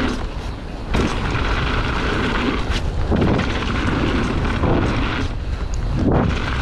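Wind rushing over the camera microphone and mountain bike tyres rolling fast over a gravel trail, with a few sharp knocks and rattles as the bike hits bumps.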